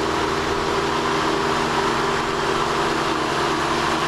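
A sailboat's two motors running steadily while under way, an even low hum with a steady hiss over it.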